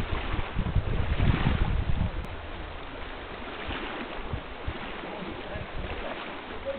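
Wind rumbling on the microphone over the rush of shallow river water, with a hooked fish splashing at the surface about four seconds in.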